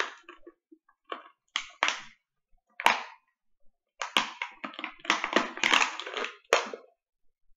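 Thin plastic water bottle crinkling and crackling in the hands in irregular bursts, as the mouth of a rubber balloon is stretched over its neck.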